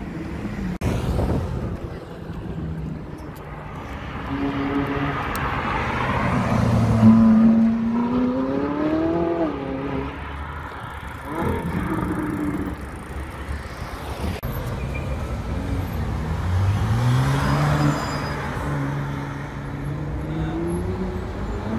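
Sports car engines accelerating past, each engine note rising steadily in pitch: one about a third of the way in, another near the end, with street traffic noise between.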